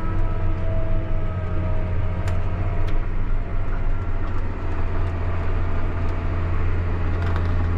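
John Deere 8300 tractor's six-cylinder diesel engine running steadily under load, pulling a tillage implement across a field, with a deep, even hum.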